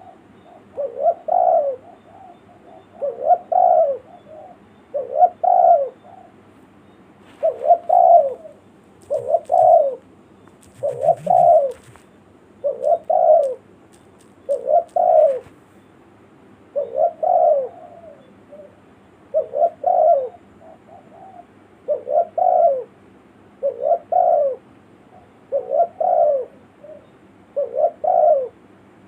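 Spotted dove (tekukur) cooing over and over, one phrase about every two seconds, each a short lead-in note and then a longer coo. This is the call used as a lure for wild doves.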